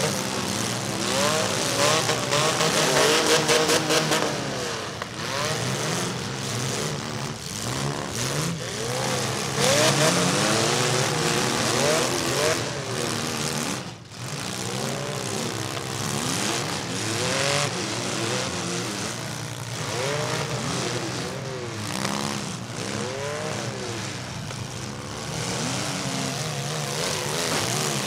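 Engines of several compact demolition-derby cars revving hard and running, their pitch rising and falling over and over as they accelerate and back off while driving into each other.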